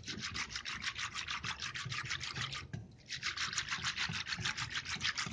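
Wire whisk beating a thin gram-flour and curd batter in a bowl: fast, even scratchy strokes, about six or seven a second, with a short break about three seconds in. The batter is being whisked smooth to get rid of lumps.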